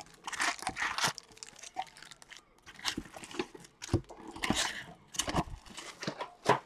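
Foil trading-card packs crinkling and tearing as they are opened by hand, with a few light knocks as packs are set down on the table.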